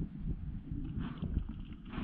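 Underwater sound through a diving camera's housing: a low, uneven, muffled rumble with soft knocks, and a short hiss of air bubbles from the freediver near the end.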